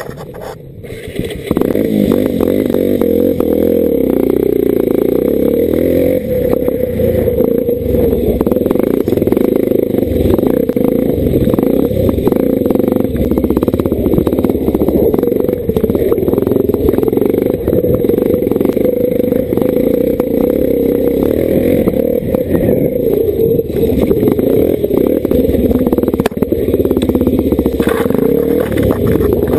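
Honda CRF230 dirt bike's single-cylinder four-stroke engine running under load on a rough trail, with the bike rattling and clattering over bumps. It is quieter for the first second and a half, then loud and steady.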